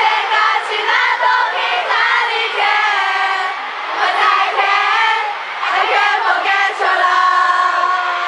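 A dense crowd of excited fans screaming and calling out in high-pitched voices, many at once and overlapping.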